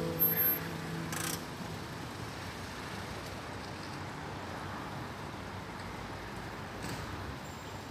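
Steady city street noise, a hum of distant road traffic, after background music fades out within the first second.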